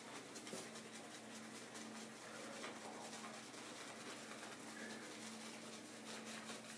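Shaving brush whisking soap lather in the palm of the hand: fast, continuous brushing made of many small wet ticks.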